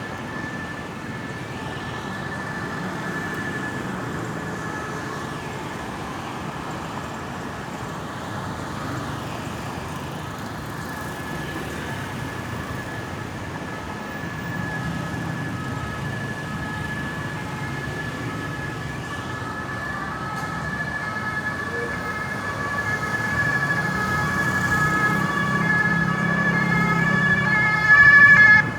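Ambulance siren sounding a steady high tone over traffic rumble, growing louder as it approaches, with a rapid pulsing tone joining in. It is loudest for a moment near the end.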